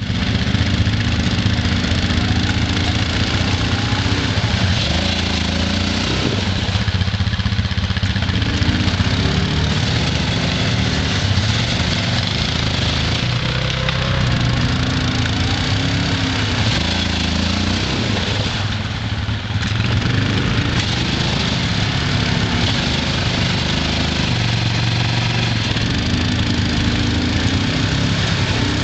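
ATV engine revving in surges and easing back as the quad, stuck in riverbed mud and water, tries to drive itself out. The engine drops back briefly twice, about seven and nineteen seconds in.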